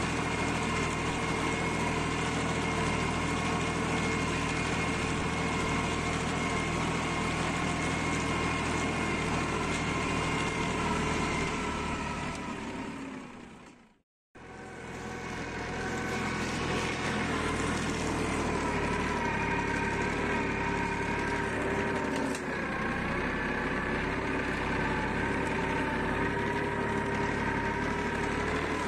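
Erkunt Kısmet 55e B orchard tractor's diesel engine running steadily under load, pulling a nine-shank chisel plough through the soil. About twelve seconds in, the sound fades out to silence for a moment, then fades back in.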